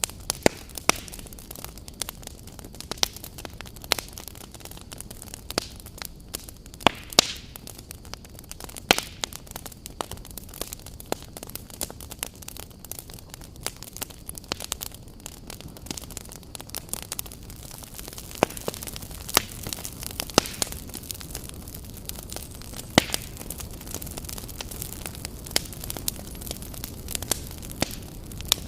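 Wood fire burning, a steady low hiss with frequent sharp, irregular crackles and pops of burning logs.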